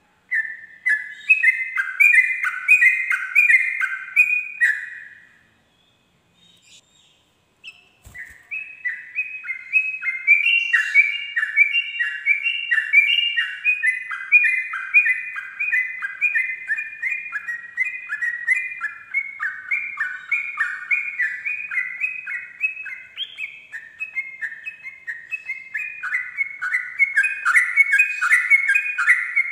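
Yellow-vented bulbul (trucukan) singing its rolling "ropel" song: a fast, unbroken run of repeated whistled notes, about three a second. A short run at the start breaks off after about five seconds, and after a pause of about three seconds a long run begins and carries on.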